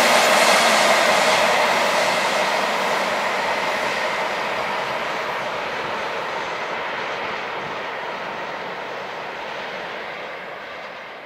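Container freight train's wagons rolling along the track and drawing away, the rolling noise growing steadily fainter.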